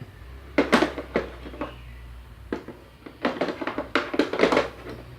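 Metal hand tools and drill accessories clinking and knocking as they are handled in their plastic carry case: a quick run of clicks about half a second to a second and a half in, then a longer flurry of knocks from about three to four and a half seconds.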